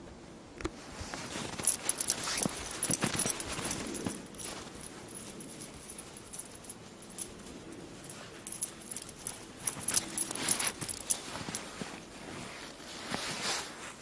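Footsteps crunching and squeaking through deep snow, in irregular bunches of sharp crackly steps with pauses between.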